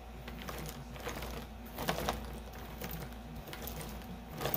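Chalk pastel sticks clicking and knocking against one another as they are sorted through in their box, a few light irregular taps.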